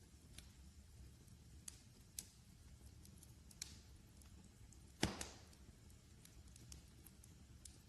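Wood fire crackling faintly, with scattered small pops and one louder snap about five seconds in, over a low steady rumble.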